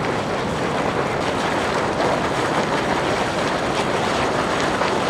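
A geyser spouting boiling water and steam close up: a steady rushing hiss with the spatter of falling water.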